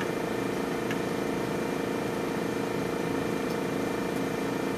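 Steady, unchanging hum of running laboratory equipment, with a constant mid-pitched drone.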